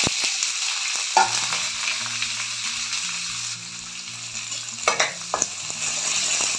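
Chopped onions sizzling loudly in hot oil with whole spices in a kadhai, the sizzle easing a little after the first seconds. A few clicks of a metal spatula against the pan about a second in and near the end as the onions are stirred.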